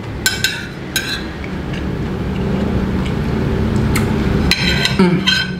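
A spoon clinking against a plate while scooping food: a few sharp, ringing clinks in the first second, then a cluster of them near the end, over a steady low hum.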